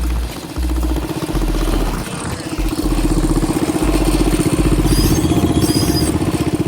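Moped engine running under way at speed, fitted with a Mikuni carburetor, its rapid exhaust note getting louder about halfway through, with wind buffeting the microphone.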